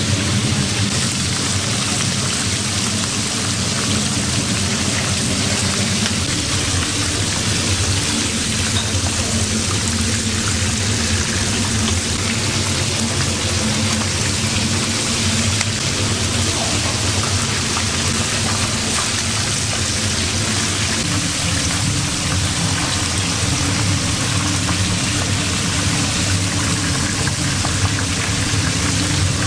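Food sizzling as it fries in a hot pan or on a griddle, a steady crackling hiss, with a low steady hum underneath.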